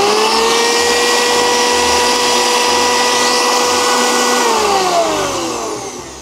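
Holz Mill 25 L hammer grain mill's 1 kW, 19,000 rpm motor spinning up to a steady high whine with a rising pitch at the start. About four and a half seconds in it is switched off and winds down, its pitch falling as it fades.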